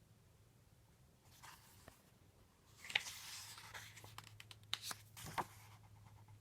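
Paper rustling with several sharp ticks, about three seconds long from near the middle: a picture book's page being turned and handled.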